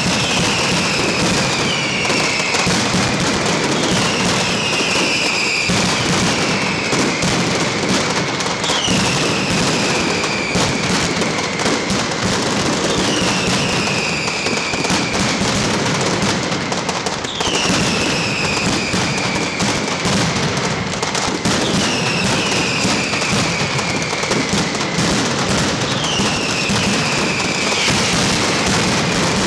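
Mascletà: a dense, continuous rattle of ground-level firecrackers exploding in rapid succession. Falling whistles from whistling fireworks come roughly every two seconds.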